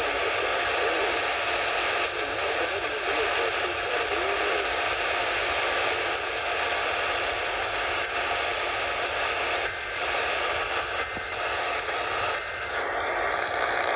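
Steady radio static: an even hiss from a radio receiver on a weak signal, with faint traces of the broadcast wavering under it for the first few seconds.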